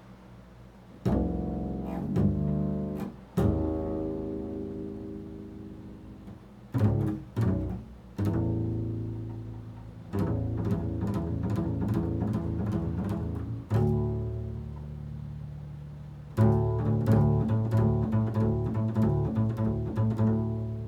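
Solo improvised music on a low-pitched string instrument: separate notes start sharply and ring out as they fade, then a quicker run of notes begins about sixteen seconds in.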